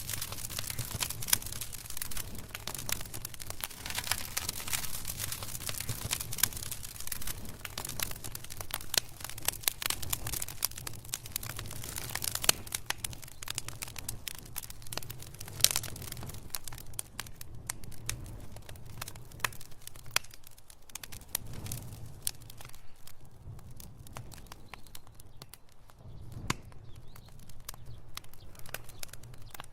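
Wood fire crackling and popping in a fireplace: a dense run of sharp snaps over a low rumble of flame. The snaps thin out somewhat after about halfway.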